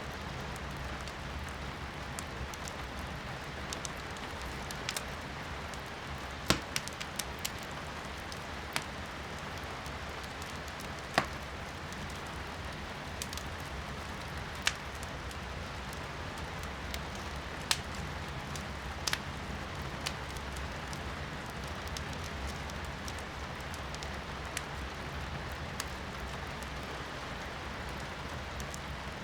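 Wood fire burning in a fireplace, with irregular sharp crackles and pops of the firewood, the loudest about six and eleven seconds in, over a steady hiss of rain heard from indoors.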